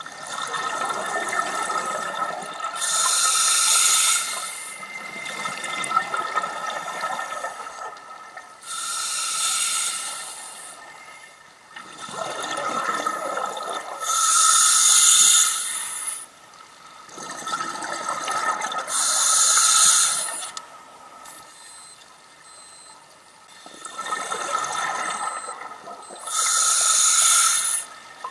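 A scuba diver breathing through a regulator underwater: about five breaths, each a short, sharp hiss on the inhale alternating with a longer rush of exhaled bubbles.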